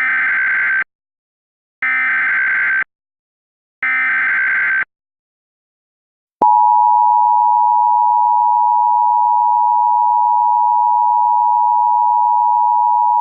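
Emergency Alert System tones. Three short bursts of SAME header data, each a rapid buzzing screech about a second long with a second's pause between, are followed about six and a half seconds in by the steady two-tone attention signal of 853 and 960 Hz, which holds.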